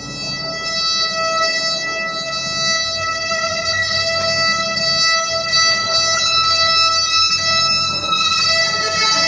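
Small live band playing: bowed violin over electric archtop guitar, upright double bass and drum kit, with a steady high tone sustained throughout.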